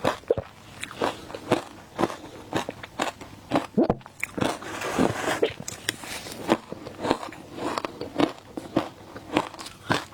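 A person biting and chewing shaved ice in a steady run of crisp crunches, about two or three a second.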